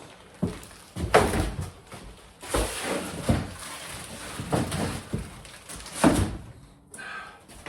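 A run of knocks, thuds and scrapes as a bath panel is handled and set against the bath, with sharp bangs about a second in and about six seconds in.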